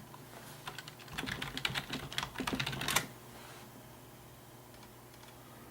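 Typing on a computer keyboard: a quick run of key clicks that stops about three seconds in.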